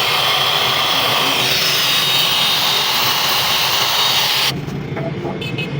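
A power tool working on metal, a loud, steady hissing rush with a high whine, which cuts off suddenly about four and a half seconds in.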